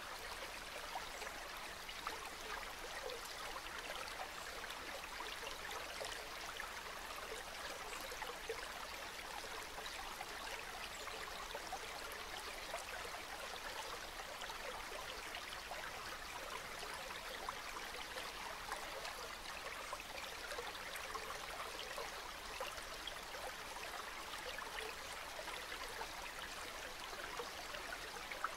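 Calm river water flowing steadily, a continuous babble of small ripples.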